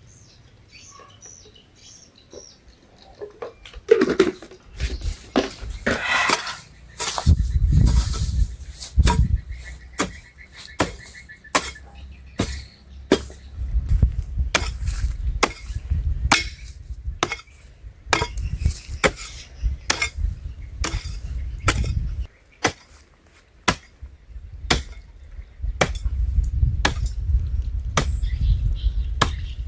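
Hand tool striking over and over: irregular sharp knocks, about one or two a second, with dull low thuds underneath in stretches.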